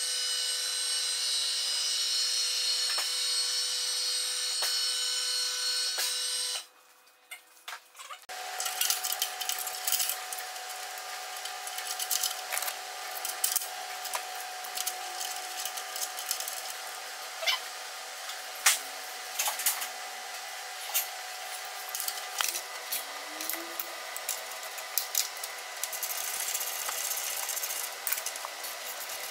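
A two-post car lift's electric motor runs steadily for about six and a half seconds and cuts off suddenly. After a short pause, hand tools and metal parts click and tap irregularly over a faint steady hum.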